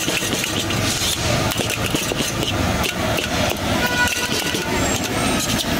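Steel ladle scraping and clanking against a large wok as shredded cabbage and manchurian are stirred, over steady street traffic noise. A short car horn sounds about four seconds in.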